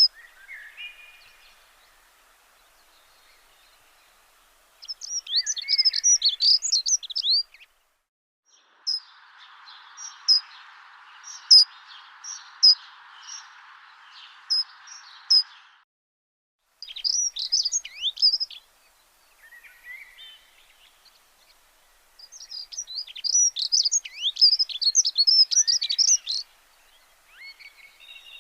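Small songbirds chirping and twittering in quick bursts of high, rapid notes, separated by short gaps. A steady hiss sits under the chirps from about a third of the way in until just past the middle.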